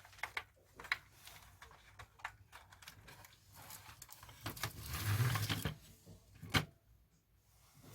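Hands working on the plastic casing and parts of an old cassette tape recorder: scattered clicks and rattles, with a louder stretch of handling about five seconds in and one sharp click near the end.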